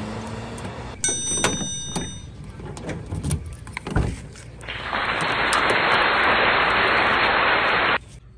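Sharp clicks from a van's exterior door handle and latch as the door is opened, some with brief high ringing tones. A loud steady hiss follows and cuts off abruptly.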